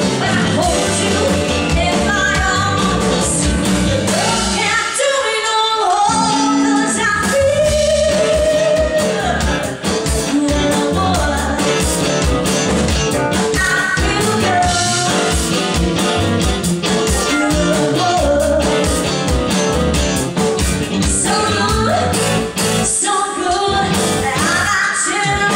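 Rock-style music with a singer over a drum kit keeping a steady beat.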